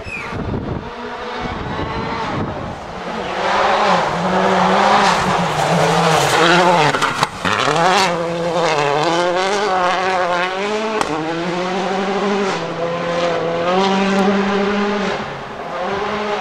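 Rally car engine revving up and down at speed through repeated gear changes, with a brief dip about seven seconds in and a few sharp cracks on the lifts; loudest between about four and seven seconds in.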